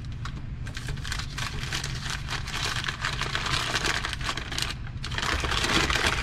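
Plastic packaging crinkling and rustling as small parts are unwrapped, with a quick run of clicks, loudest near the end. A steady low hum sits underneath.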